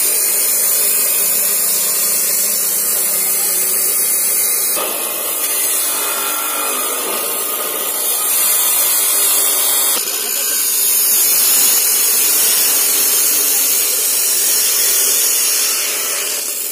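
Abrasive cut-off saw grinding through a metal motorcycle racing exhaust, a loud continuous grind whose tone shifts about five and ten seconds in.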